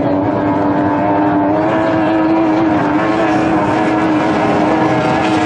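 Racing hydroplane powerboat engine running hard, a steady drone that wavers slightly in pitch.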